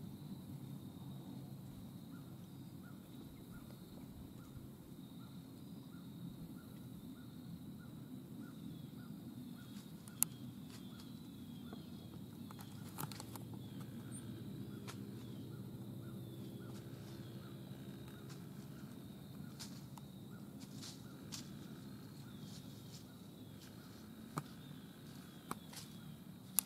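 Faint autumn woodland ambience: a low steady background rumble with insects chirping in a regular pulse, about twice a second, and a few sharp clicks or snaps scattered through the second half.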